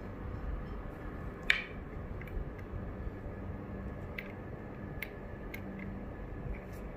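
Scattered light clicks and taps of a metal push-button switch being handled and set down on a wooden tabletop, the sharpest a ringing click about a second and a half in, over steady low background noise.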